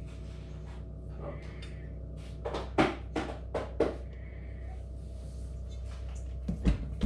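Kitchen handling sounds: a quick run of about five sharp knocks and clatters, then a single heavier thump near the end, over a steady low hum.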